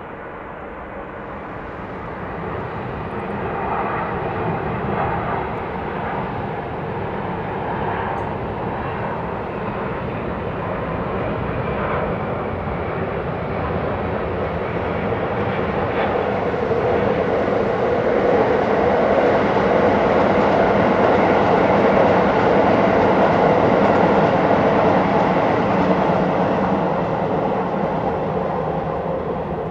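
Airbus A330-300 turbofan jet engines on landing approach. A steady roar grows louder as the airliner comes in, is loudest around its pass and touchdown, and eases a little near the end as it rolls out.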